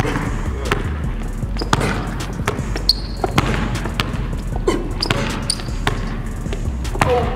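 A basketball being dribbled hard on a hardwood gym floor through crossover moves. The bounces land unevenly, about one or two a second, over background music.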